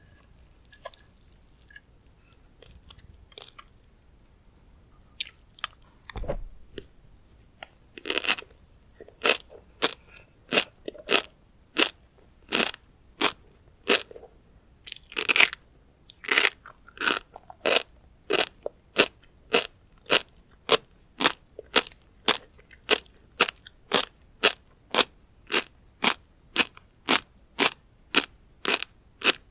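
Close-miked chewing of tobiko (flying fish roe), each chew a sharp, crunchy pop. The pops settle into an even rhythm of about one and a half a second, after a quiet start and a dull thump a few seconds in.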